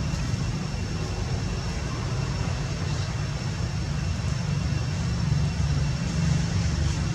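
Steady low rumble of outdoor background noise, with faint, steady high-pitched tones above it.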